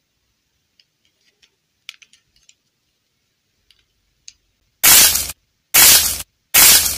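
Faint small clicks and taps as a plastic fashion doll with a clay mask is handled. Then come three loud bursts of hissing noise, each about half a second long and about a second apart.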